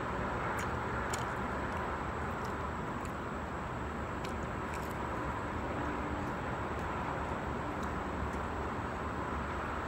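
Steady background hum and hiss, with a few faint soft clicks from a person chewing a sandwich.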